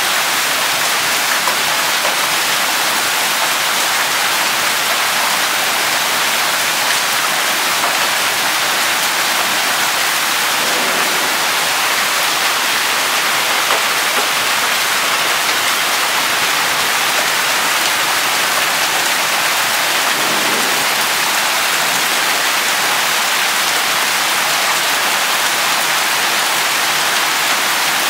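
Hailstorm: hail and rain pelting the ground, leaves and pavement in a steady, dense hiss.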